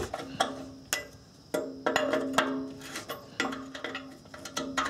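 Open-end wrench hanging on an exhaust oxygen sensor clinking against the exhaust pipe as the sensor is turned out by hand: about ten irregular metallic clanks, each with a short ring.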